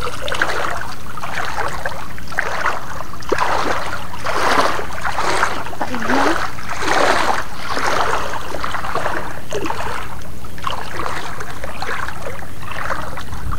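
Feet wading through shallow seawater, a slosh and splash with each step, about one a second, over a steady low rumble.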